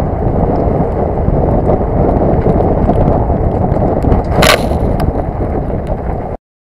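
Ford Ranger 2.2 TDCi pickup driving on a gravel track, heard from a camera mounted outside on its flank: heavy wind buffeting on the microphone over tyre and road noise, with a brief sharp hiss about four and a half seconds in. The sound cuts off suddenly near the end.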